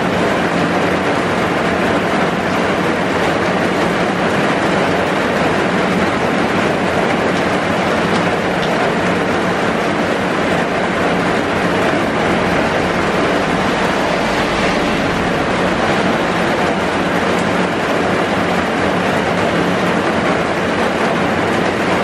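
Heavy rain pouring steadily, heard from inside a bus shelter: a dense, even hiss of rain with no let-up.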